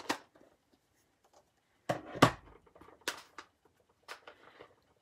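Sharp clicks and knocks from handling craft supplies on a tabletop, including a plastic ink pad case. The loudest is a thump about two seconds in, with three lighter knocks spread around it.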